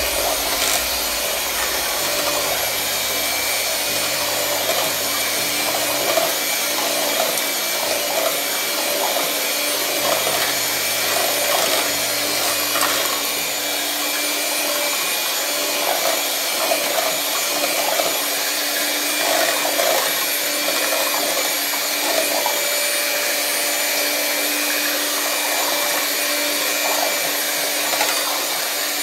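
Electric hand mixer running steadily, its beaters churning a liquid avocado and coconut-milk ice cream base in a steel pot.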